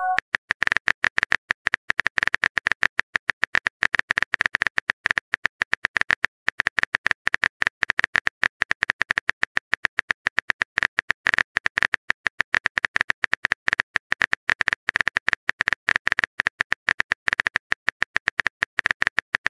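Phone keyboard typing sound effect: rapid, irregular key clicks, several a second, as a text message is typed out.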